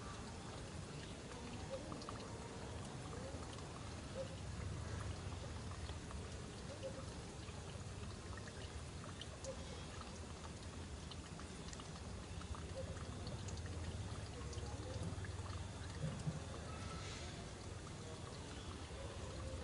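Steady outdoor background noise, an even rushing hiss like water or wind in foliage, with scattered faint ticks and small blips.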